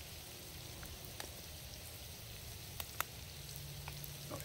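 Food frying in hot oil in a heavy pan, a steady sizzle with a few sharp pops, the loudest about three seconds in.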